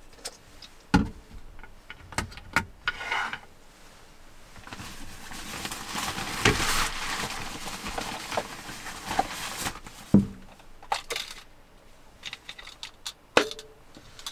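Small clicks and knocks of a bottle and small items handled on a wooden counter, with a plastic bag rustling and crinkling for several seconds in the middle.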